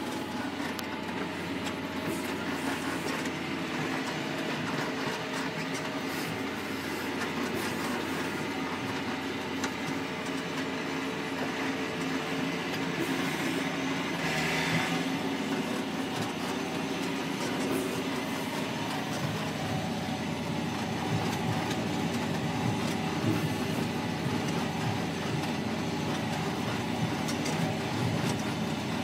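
John Deere 6820's six-cylinder diesel running steadily under load, heard from inside the cab, with the rolling clatter of a triple press being pulled over dry ploughed ground.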